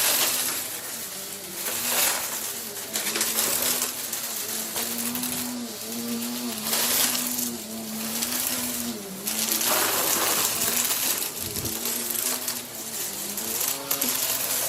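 Vacuum cleaner running and pushed quickly back and forth over the floor. Its motor hum wavers in pitch, and the rushing air noise swells and fades every second or two with each stroke.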